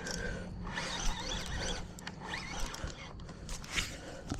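Fishing reel drag buzzing in spurts as a hooked red drum takes line, over a low steady hum.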